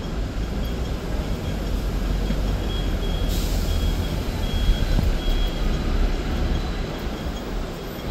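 Hong Kong double-decker tram running along its tracks, heard on board as a steady low rumble. Faint high beeps recur through it, and a brief hiss comes about three seconds in.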